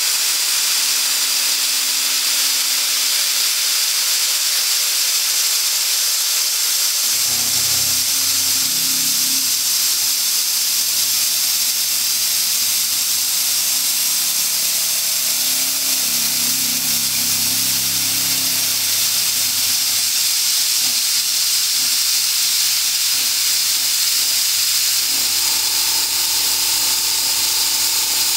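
Steady, loud hiss of a CNC mill's mist coolant attachment spraying the end mill, with the machine's hum as the end mill cuts through aluminum at a low feed rate. The hum's pitch comes in about a quarter of the way through and shifts again near the end.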